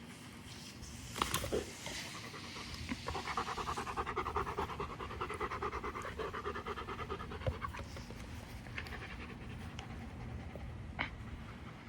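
German Shepherd panting fast and steadily, loudest in the middle, as a dog does when winded from hard play. A few sharp clicks come about a second in.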